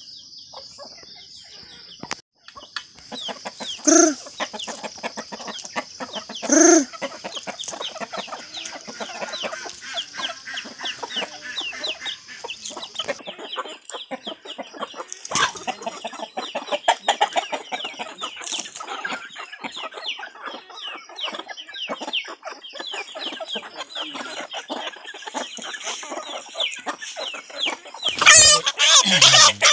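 Free-range village chickens clucking as they peck at scattered grain, in many short, quick calls, with two louder calls about 4 and 7 seconds in. Near the end a chicken squawks loudly as it is grabbed by hand.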